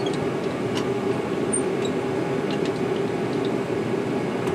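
Steady workshop machine hum with a few faint, light metallic ticks.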